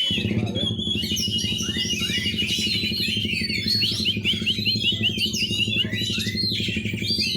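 Background music with a fast, steady beat cuts in suddenly, and songbirds keep chirping over it in quick, repeated high notes.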